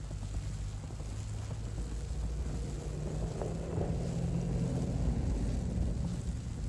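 Low engine hum that grows louder midway and eases off near the end, over a low wind rumble.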